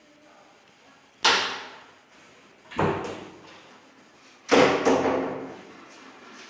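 Hinged plywood wardrobe doors banging shut, four knocks in all, the last two close together. Each knock rings on briefly in a bare, echoing room.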